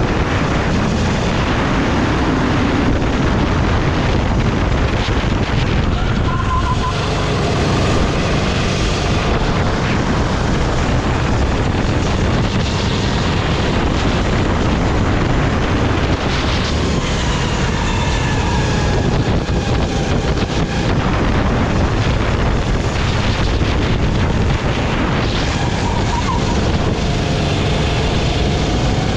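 Sodi kart's engine running at speed from an onboard microphone, its revs rising and falling several times through the corners, under heavy wind rush on the microphone.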